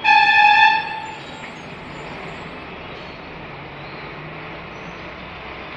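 A loud electronic beep lasting just under a second at the start, one steady pitch, followed by a steady background hum.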